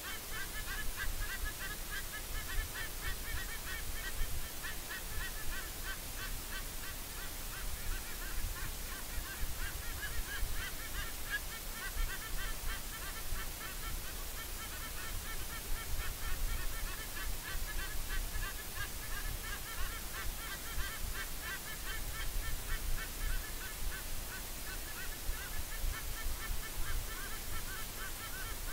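A dense, continuous chorus of short, rapidly repeated animal calls, with a low rumble underneath.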